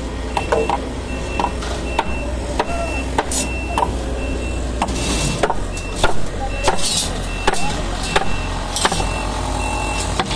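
A reversing vehicle's backup alarm beeping steadily, about twice a second, over a low engine rumble, with scattered sharp knocks.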